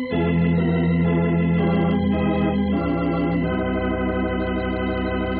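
Organ music cue from an old-time radio drama: a run of held chords that change a few times.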